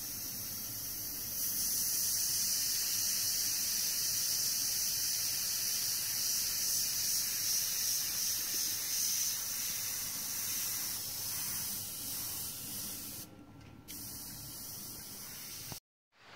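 Gravity-feed airbrush hissing steadily as it sprays paint, growing louder about a second and a half in, briefly dropping away near the end, then cutting off.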